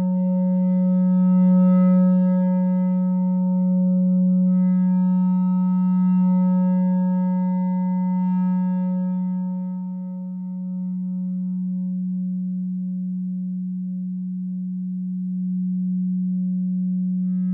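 No-input mixer feedback drone from a two-channel mixer looped through an effect pedal: a steady low hum with a stack of fixed higher overtones above it. About ten seconds in the upper overtones fade and the drone thins to the low tone, and they come back near the end.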